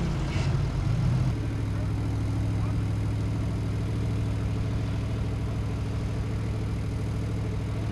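Formula Offroad buggy's engine idling steadily, waiting to start its run.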